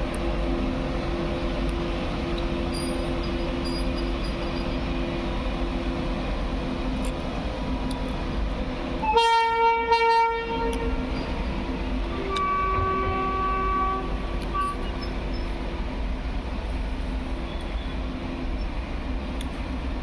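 WAG-9HC three-phase AC electric locomotive humming steadily. About halfway through its horn sounds one loud blast of about a second and a half, and a shorter, quieter horn note at a different pitch follows about two seconds later.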